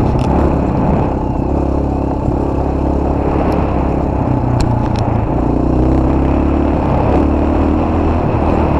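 Motorcycle engine running steadily at low speed while riding, its pitch rising and falling slightly with the throttle.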